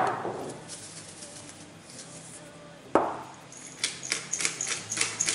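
Salt and pepper being added into a Moulinex Companion's stainless steel bowl: two sharp knocks about three seconds apart, each ringing briefly, then a run of rapid clicks from about three and a half seconds in.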